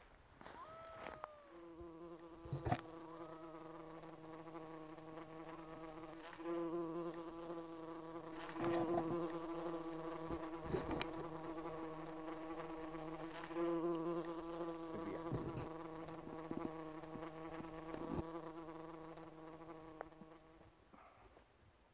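A flying insect buzzing steadily close by. It swells louder several times and fades out near the end, with a few light clicks and knocks scattered through.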